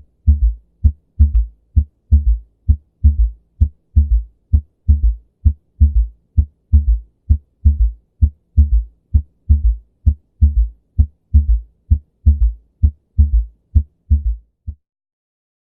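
Recorded human heartbeat with a third heart sound: a low gallop of lub-dub plus an extra faint thud early in diastole, about one beat a second. The third sound comes from blood flowing into the left ventricle slowing suddenly. It stops abruptly near the end.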